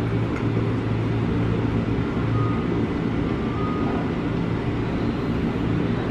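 Steady low hum of a JR 205-series electric commuter train standing at the platform with its onboard equipment running while it waits to depart.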